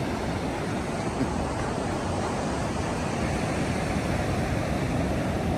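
Ocean surf washing steadily onto the beach, an even rush of noise.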